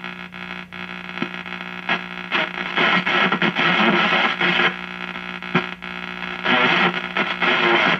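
Shortwave static and hiss from a 1939 Fada Model 169 tube radio's speaker as the dial is tuned across the top band, swelling and fading between signals over a steady low hum. Near the end a garbled single-sideband signal comes in.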